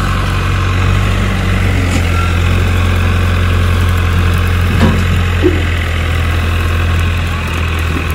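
Heavy diesel engine running steadily at a low, even speed.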